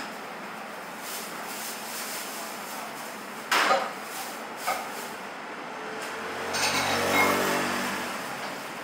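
Metal spoon clinking and scraping against a ceramic rice bowl, a sharp clink about three and a half seconds in and a smaller one about a second later, over steady traffic noise; near the end a passing motor vehicle swells and fades.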